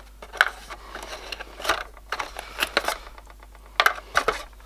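Hands handling a cardboard phone box and its insert: a series of short, irregular clicks and light crackles, about half a dozen of them.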